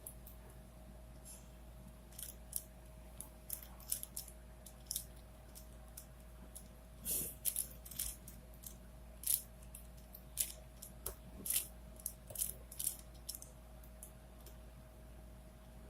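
Plastic 4x4x4 Rubik's Cube (Rubik's Revenge) turned by hand: irregular sharp clicks and clacks of its layers snapping round, in short runs of turns with brief pauses. A faint steady hum lies underneath.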